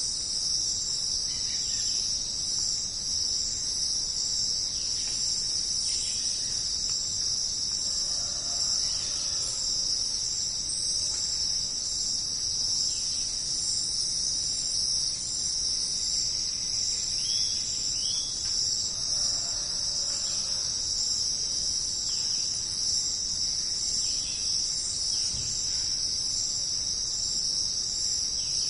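Steady, high-pitched chorus of insects trilling, with faint, scattered bird calls now and then underneath.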